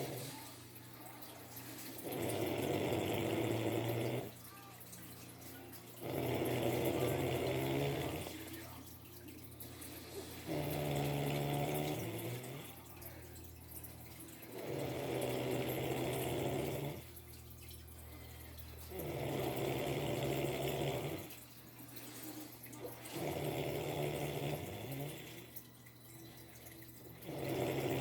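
Loud, regular snoring: a rasping snore about every four seconds, each lasting about two seconds, with quieter breathing in between.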